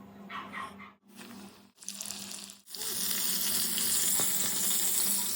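Popcorn chicken pieces deep-frying in hot oil, with a dense sizzle. The sizzle starts suddenly about halfway through and stays loud and steady, after a few quieter, briefly cut-together sounds.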